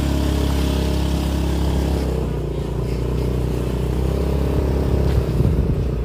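Motorcycle engine running steadily while riding on a broken, potholed concrete road, with a few knocks and rattles from the rough surface near the end.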